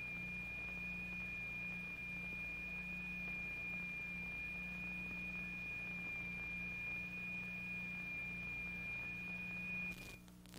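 A steady, high-pitched pure sine tone, the excitation frequency driving the vibrating medium, held at one pitch over a low hum. It cuts out briefly near the end.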